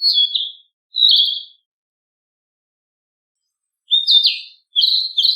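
Narcissus flycatcher singing: two short, high warbled phrases, then after a pause of about two seconds, three more in quick succession.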